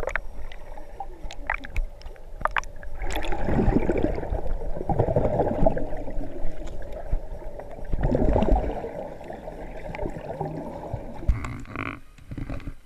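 Swimming-pool water heard underwater: muffled gurgling and rushing of bubbles and swimmers' movements, with a few sharp clicks. It swells louder twice, about three and eight seconds in.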